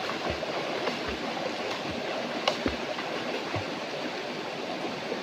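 Steady rush of water flowing from a waterfall into a stream-fed bathing pool, with a few soft low thumps and one sharp tick about two and a half seconds in.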